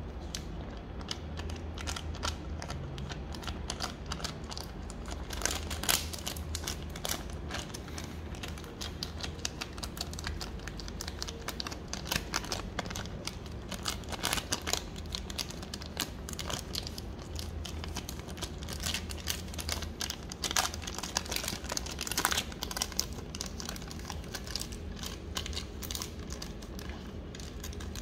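A beagle licking yoghurt off a thin clear plastic lid held in a person's fingers: the flexible plastic crackles and crinkles irregularly under the tongue and hands, with louder spells of crackling now and then.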